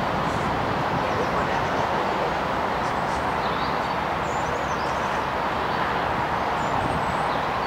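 Steady rushing outdoor noise at an even level, with a few faint bird chirps above it.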